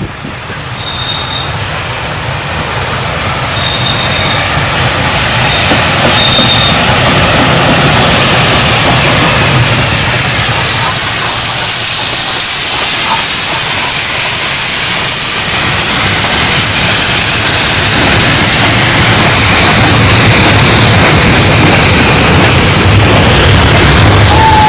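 Steam locomotive 63395, a Q6 0-8-0 freight engine, coming through at the head of a goods train of wagons. The rumble and hiss of the train build over the first several seconds and stay loud to the end.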